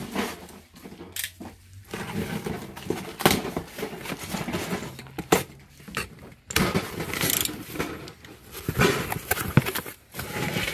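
A cardboard box being cut open with a box cutter and its flaps pulled back: irregular scraping and rustling of cardboard and packing tape with sharp knocks, then a hand rummaging in bubble wrap near the end.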